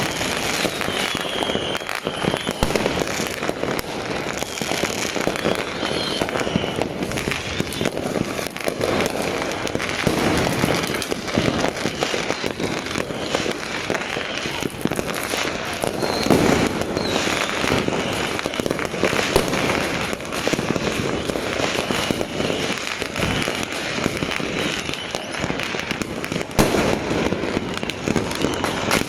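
Fireworks and firecrackers going off in a continuous barrage of bangs and crackles, the celebration that follows the countdown reaching zero.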